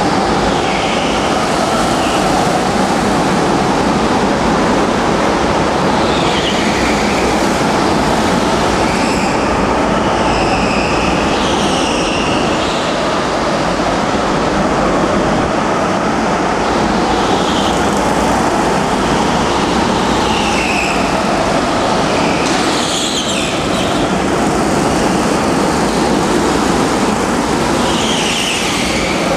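Several go-karts lapping a track, their motors making a steady drone with short tyre squeals, one after another, as the karts go through the corners.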